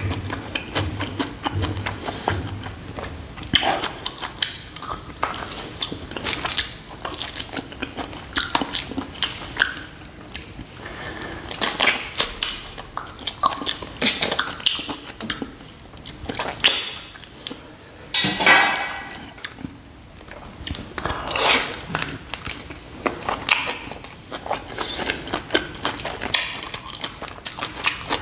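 Close-miked chewing and lip smacks on spicy mutton nalli, with several longer slurps as marrow is sucked from the shank bones, the loudest about two-thirds of the way through.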